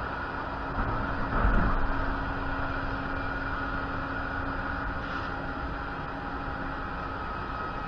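Steady airport apron hum with a faint steady drone running through it, and a brief low rumble swelling about a second and a half in.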